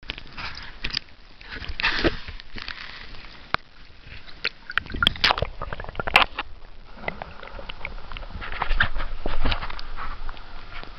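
Water sloshing and gurgling around a camera dipped in and out of the sea, with sharp irregular clicks and knocks throughout.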